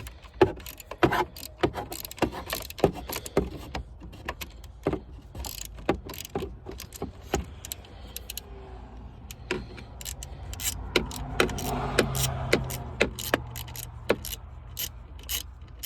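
Hand ratchet clicking in quick irregular runs as it drives a break-off security screw into a Ford steering-column ignition lock housing. A low hum comes in about two-thirds of the way through.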